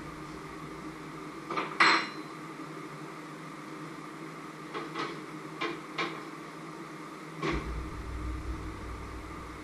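Kitchen clatter: a loud knock of cookware about two seconds in, a few light clicks and taps around five to six seconds, then an oven door bumped shut near the end, over a steady background hum.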